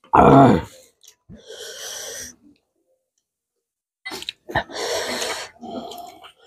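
Close-up mouth sounds of people eating spicy noodles and chicken. A short voiced grunt comes just after the start and a breathy hiss follows a second later. After a silent pause of about a second and a half there is a run of wet clicks, slurps and hissing breaths.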